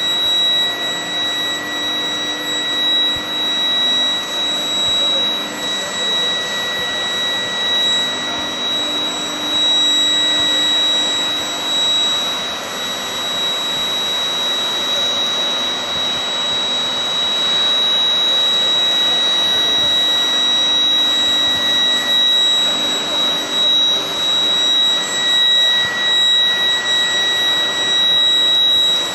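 Steady industrial machinery noise from an electric bulldozer-blade tempering furnace line, with a constant high-pitched whine over it.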